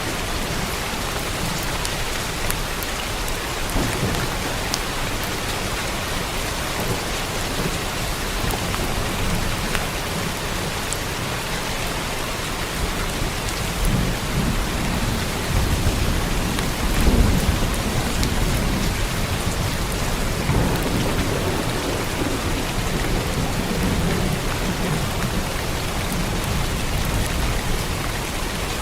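Steady heavy rain falling on a roof, with rolling thunder rumbling in a couple of low swells through the middle, loudest about 17 seconds in.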